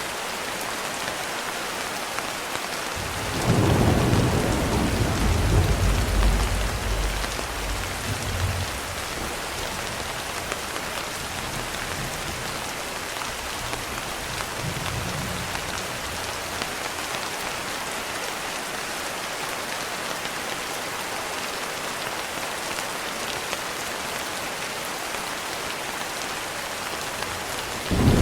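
Steady rain hissing throughout. A roll of thunder starts about three seconds in and rumbles for around five seconds. Fainter rumbles follow in the middle, and another thunder roll begins right at the end.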